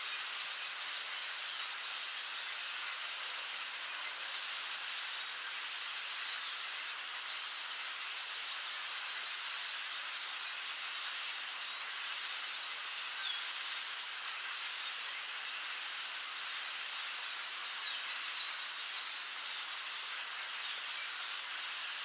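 A large flock of blackbirds calling together in the trees: a dense, steady din of many overlapping calls, with a few single calls standing out now and then.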